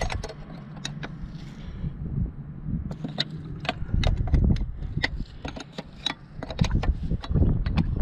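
Open-end wrench clinking on the steel injector-line nuts of a KE-Jetronic fuel distributor as the lines are loosened: a scatter of sharp metallic clicks and taps, thickest in the second half, over a low background rumble.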